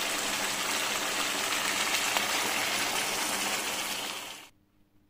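Mutton curry gravy bubbling and sizzling in a karahi over a gas flame: a steady hiss that cuts off abruptly about four and a half seconds in.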